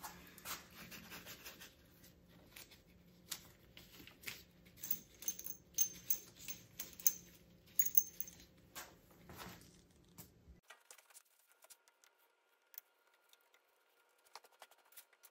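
Small metal parts being handled and set down during lathe disassembly: scattered clicks and light rattling over a steady low hum. About ten seconds in the hum cuts off abruptly and only a few faint clicks remain.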